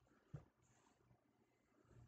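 Near silence: faint room tone with a low hum, and one brief soft thump about a third of a second in.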